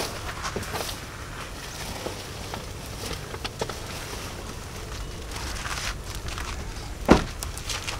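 Handling noises at a pickup truck's open rear door: a plastic bag rustling and small knocks as it is taken out, then one loud thump about seven seconds in.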